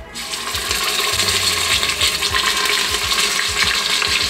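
Pieces of beef chuck sizzling in hot oil in an Instant Pot on its sauté setting: a steady crackling hiss that starts suddenly as the meat goes into the pot.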